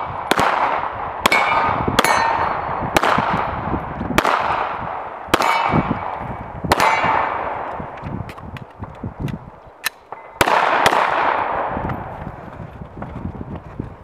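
A string of pistol shots about a second apart, each hitting a steel plate target that rings after the hit. There are seven in a row, then a pause with small clicks, then two more quick shots with ringing steel.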